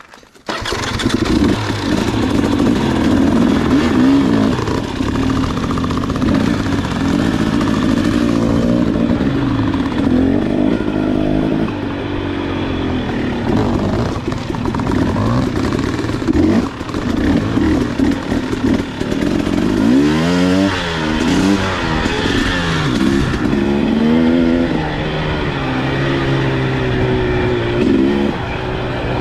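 KTM 300 two-stroke dirt bike engine running under way, its revs rising and falling again and again as the throttle is worked through the trail. The engine sound comes in abruptly about half a second in.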